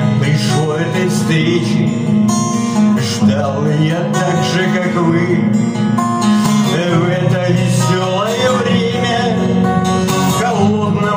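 Music: acoustic guitar playing the song's accompaniment, with a gliding melody line over it and no words.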